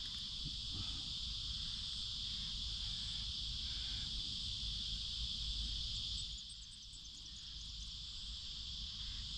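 Steady chorus of insects, a constant high-pitched hiss-like trill, over a low rumble.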